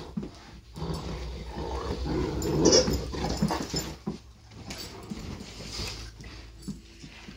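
Two Great Danes play-fighting over a toy: dog vocal sounds mixed with scuffling of paws and bodies on sofa cushions. It is loudest in a burst about two and a half to three seconds in, then quieter.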